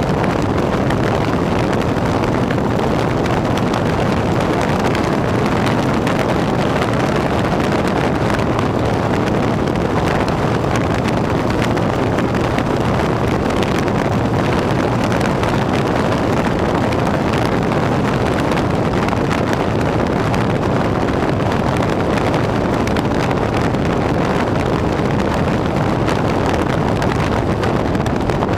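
Harley-Davidson motorcycle running steadily at road speed, with wind rushing over the microphone.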